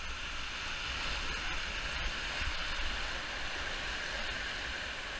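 Whitewater rapids: a steady, even rush of fast-moving river water.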